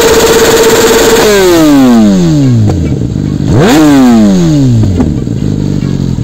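Kawasaki ZX-10R's inline-four engine, through a Yoshimura Alpha carbon slip-on exhaust, held at high revs and then let fall. A quick throttle blip sends the revs up and down again about three and a half seconds in, and it settles back toward idle. Loud throughout.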